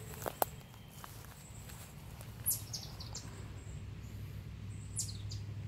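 A songbird calling twice, each call a quick run of high notes dropping in pitch, over a steady low rumble. Two sharp clicks sound about half a second in.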